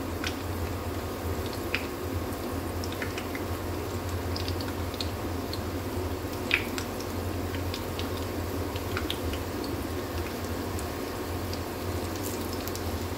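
Pakora batter frying in hot oil in a pan: a steady bubbling hiss with scattered pops and crackles as fresh spoonfuls of batter go in. A steady low hum runs underneath.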